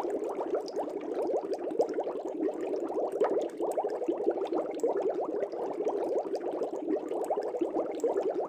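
Aquarium air bubbles bubbling steadily: a dense stream of small, rapid bubble pops and gurgles.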